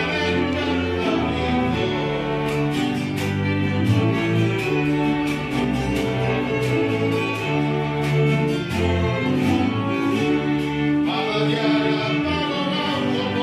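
A small string ensemble of violins, cello and double bass plays an instrumental passage of a folk song with sustained bowed notes over a walking bass line.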